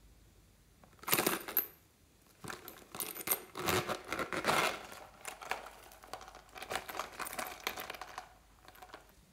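Clicks, taps and light clinks of a plastic compact case with a metal clasp being handled and opened over a glass bowl. The sound comes in irregular clusters starting about a second in, with a brief high ring near the start, and stops a second before the end.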